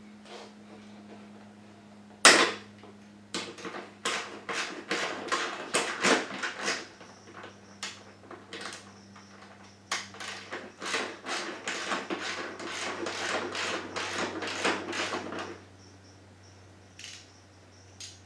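Ratchet wrench with a 10 mm socket loosening a motorcycle exhaust mounting bolt: one sharp knock, then two long runs of rapid clicking from the ratchet.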